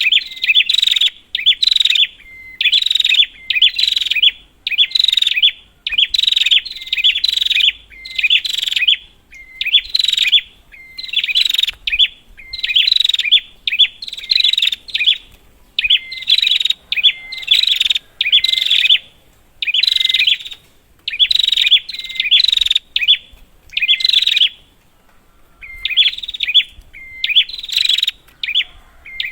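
Prinia (prenjak) calling loudly and without let-up: bursts of rapid, sharp chirps repeated about once a second, with a short lull near the end. This is the kind of busy, agitated calling used as a lure to set off a quiet prinia.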